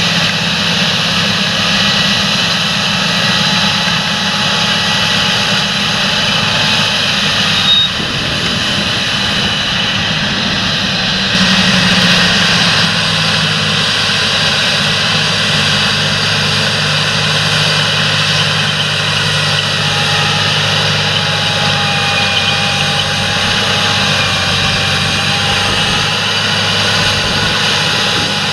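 Large John Deere tractor's diesel engine running steadily under load while working a field, a continuous low drone with a high whine over it. The sound changes abruptly about eight seconds in.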